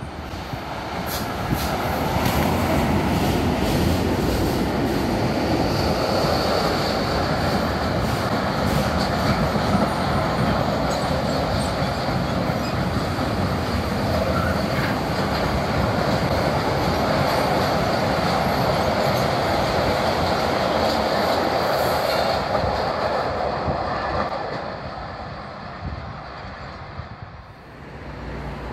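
A freight train of empty flat wagons rumbling past close by, with its wheels clicking over the rail joints as it comes in and a thin high wheel squeal about six seconds in. The rumble holds steady for about twenty seconds, then fades away near the end as the last wagons pass.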